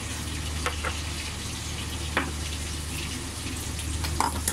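Breaded chicken schnitzels frying in hot oil in a full pan: a steady sizzle, with a few faint clicks.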